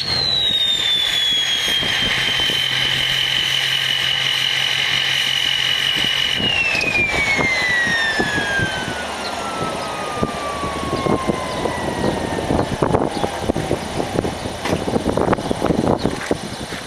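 Ford F250's 6.0L Power Stroke diesel with a 4-inch straight-pipe exhaust: a high turbo whistle over the engine's low note holds steady, then after about six seconds glides steadily down in pitch over several seconds and fades as the turbo spools down. Irregular knocks and rustles grow through the second half.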